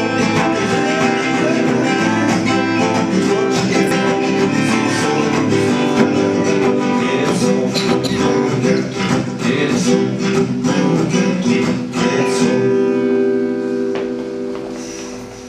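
Solo acoustic guitar strummed in chords, with no singing. Over the last few seconds the playing thins out and a chord is left ringing and fading.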